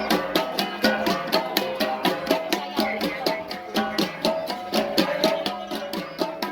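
An ensemble of Kalinga gangsa, flat bronze gongs, played in a fast, even rhythm, many strikes a second, with overlapping ringing tones of several pitches.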